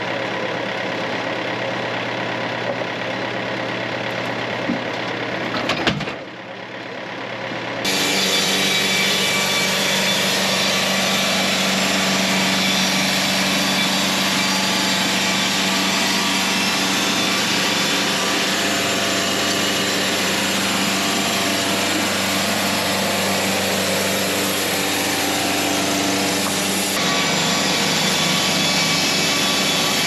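Wood-Mizer LT70 bandsaw mill running steadily, with a short knock about six seconds in. From about eight seconds in it is louder as the band blade saws through the log.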